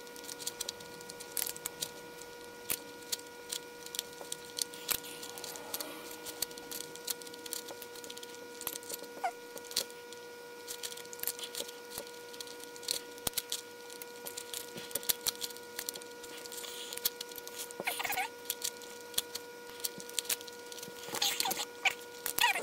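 Homemade octagon barrel twisty puzzle (a modded Rubik's cube with hand-cut, spray-painted plastic pieces) being turned through a solve: irregular plastic clicks and clacks, several a second, as the layers are turned.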